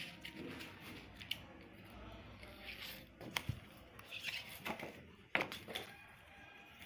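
Rustling of a pile of thin paper and plastic ID-card offcut strips being stirred by hand, with a handful of sharp clicks and snaps as the strips knock and flex against each other.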